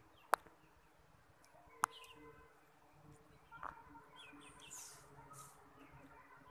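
Birds chirping faintly, with two sharp clicks, one about a third of a second in and one just before two seconds in.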